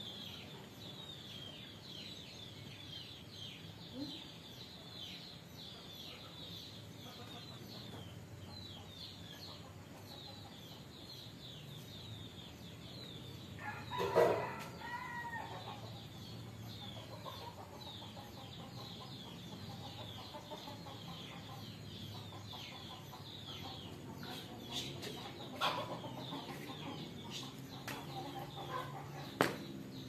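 Chickens clucking, with a steady chatter of short high chirps from small birds and one louder call about fourteen seconds in.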